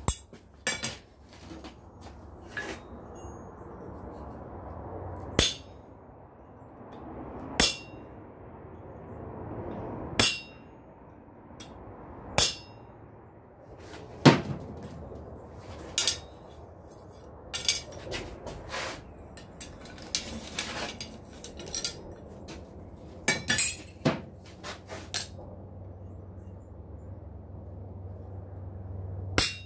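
Hammer blows on steel at a blacksmith's anvil, single strikes about every two seconds, each a sharp ringing clank that dies away quickly, with a quicker run of several blows near the end. A faint steady rumble sits underneath.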